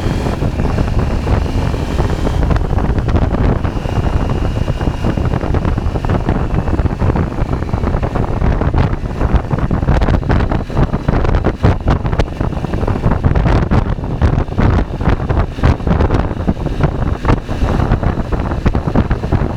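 Wind buffeting the microphone of a moving KTM 790 Adventure, over the bike's 799 cc parallel-twin engine running. The buffeting gets heavier and choppier in the second half.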